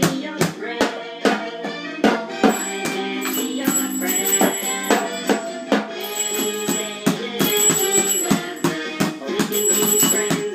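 An instrumental passage of a recorded children's song, while a child bangs a toy drum with a drumstick in irregular hits, a few a second.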